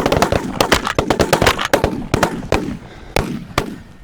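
Several shotguns firing a rapid, overlapping volley of shots, thinning out to two last single shots near the end.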